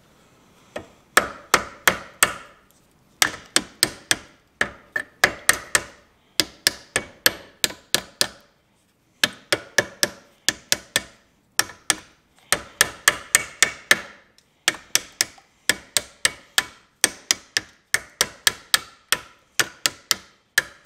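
Hammer striking a rusty steering tie rod end off a Case David Brown 1394 tractor, sharp metal-on-metal blows in quick bursts of four to six, about four a second, with short pauses between bursts. The blows are to knock dirt and rust loose so the seized tie rod end will turn out of the tie rod.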